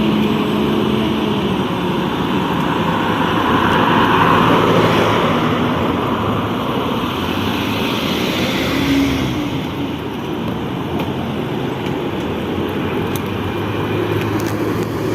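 Car driving on a road, heard from inside: steady engine and tyre noise, swelling a little about four seconds in.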